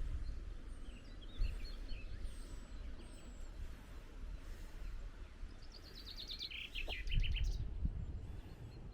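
Wild songbirds chirping, with one bird singing a fast run of notes that steps down in pitch about six seconds in, over a steady low rumble.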